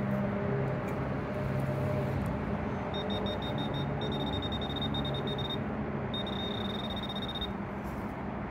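Handheld metal-detecting pinpointer probe sounding in a dig hole, a sign that it is close to metal. A high-pitched tone starts about three seconds in as quick short beeps, then holds for a second or more at a time with a short break between, all over a steady low hum.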